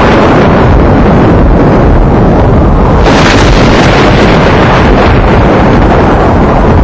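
Loud, steady rushing roar of wind, a dramatic storm effect, turning brighter and hissier about three seconds in.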